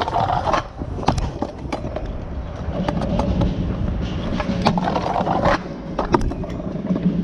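Stunt scooter wheels rolling and grinding on hard ground, with a run of sharp clacks and knocks from tricks and landings.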